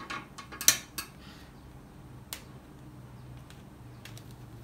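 Small scissors snipping at a hang tag: a few sharp clicks in the first second, the loudest about three quarters of a second in, then a single snip a little past two seconds.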